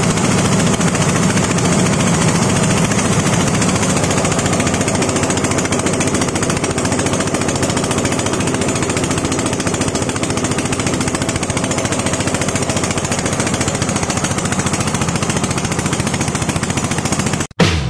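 Corn cob and rice husk grinding machine running, a loud steady mechanical clatter of fast, rapid strokes; it cuts off abruptly near the end.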